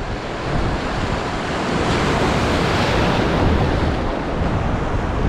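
Ocean surf washing onto the shore, with wind buffeting the microphone. A wave surges up about two seconds in and eases off by about four seconds.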